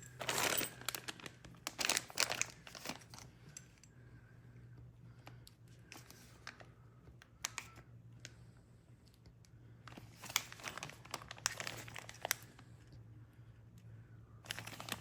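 Plastic parts packaging crinkling in two bursts as it is handled, with small sharp clicks of loose lock parts in between.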